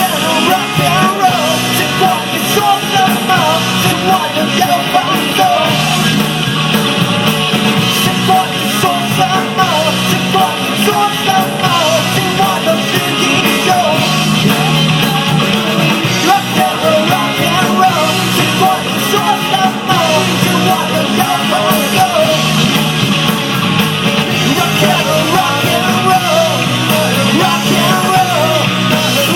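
Rock song played by a band, with singing and shouted vocals over the instruments.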